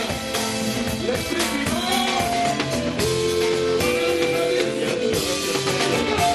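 A live Congolese band playing: electric guitar and drum kit with singers singing at microphones.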